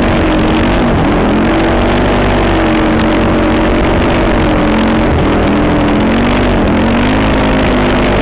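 Honda TRX450R quad's single-cylinder four-stroke engine running at road speed, its pitch dipping and recovering about a second in and again near seven seconds, under heavy wind rush on the microphone.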